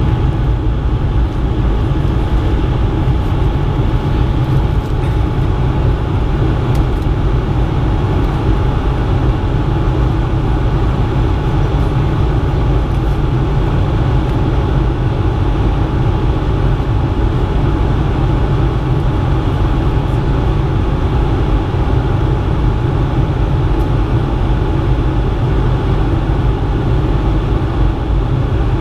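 Steady cabin noise of a Bombardier CS100 (Airbus A220-100) airliner under power just after takeoff: the rush of airflow and its Pratt & Whitney PW1500G geared turbofan engines, heavy in the low end, with a faint steady whine.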